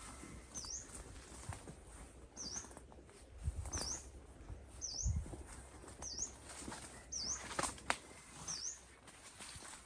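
A bird repeating a short, high, sharp chirp about once a second, over low thuds and a few clicks.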